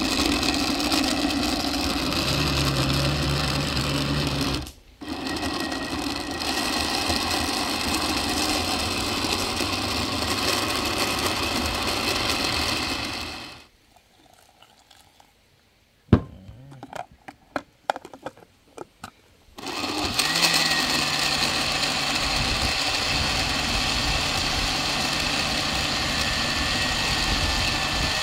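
Electric blender blending diced pumpkin with coconut milk: the motor runs steadily and cuts out for a moment about five seconds in. It stops for several seconds in the middle, with a few sharp clicks and knocks as the jar is handled, then starts up again.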